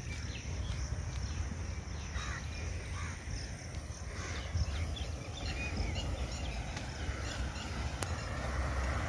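Birds calling in short, repeated calls, most of them in the first half, over a low steady rumble.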